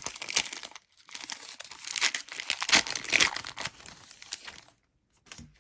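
Card-pack wrapper being torn open and crinkled by hand, a dense crackling that runs for about four and a half seconds, with a brief pause about a second in, then stops.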